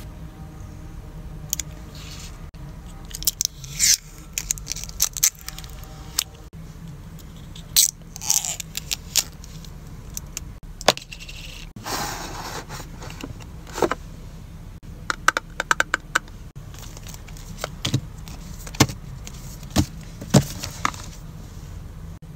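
Small plastic craft pieces being handled: a run of sharp clicks and taps, with rustling and a longer scrape about halfway through.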